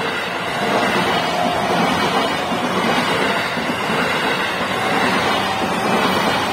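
Electric commuter train passing close by at a level crossing: a loud, steady rush and rumble of wheels on rails and car bodies going past.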